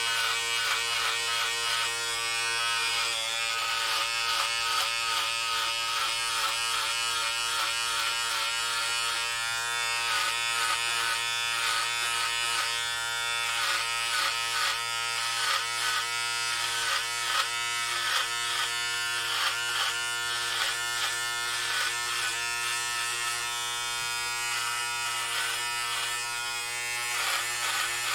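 Electric hair clippers running with a steady buzzing hum, cutting hair. The tone keeps briefly wavering and dipping as the blades pass through the hair.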